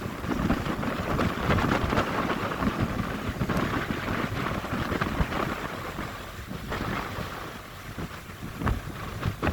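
Wind buffeting the microphone aboard a moving river tourist boat, over an uneven rumble of the boat's engine and water.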